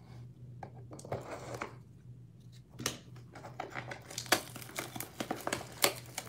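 Shrink-wrapped 2019-20 Optic Choice basketball card box being cut open and unwrapped by hand: plastic wrap crinkling and tearing, with sharp crackles and taps of cardboard. The crinkling gets denser about four seconds in as the box is opened and the packs are drawn out.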